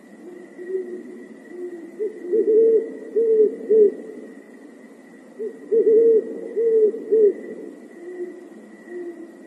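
Owl-like hooting: loud, pure-pitched hoots in two quick runs of short rising-and-falling notes, the first about two seconds in and the second about five and a half seconds in, with softer hoots between. A faint steady high tone runs beneath.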